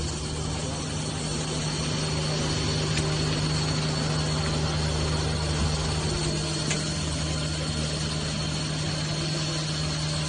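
Machinery running steadily: a constant low hum with a faint high-pitched whine above it.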